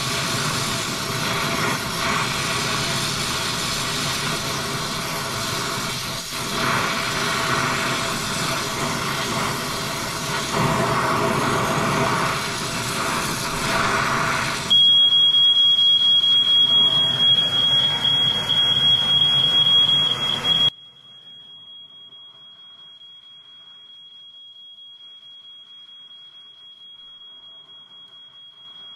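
Oxyacetylene torch flame hissing steadily while brazing a copper line. About halfway through, a loud, steady, high-pitched electronic tone starts and holds, and some six seconds later the whole sound drops sharply quieter, leaving the tone faintly.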